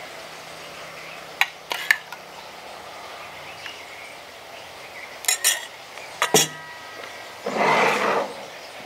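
A steel ladle clinks several times against a stainless steel bowl and plate as curd is served, the last clink ringing briefly. Near the end comes a louder rush of noise lasting nearly a second.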